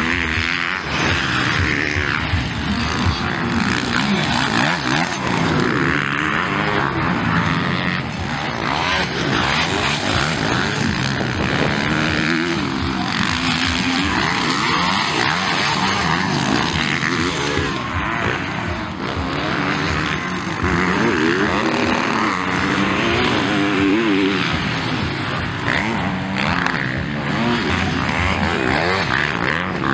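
Motocross dirt-bike engines revving, the pitch rising and falling over and over as the bikes race round the track.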